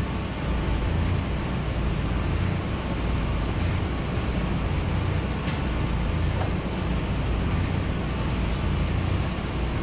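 Arc welding in progress: an even hiss over a steady low rumble of running machinery.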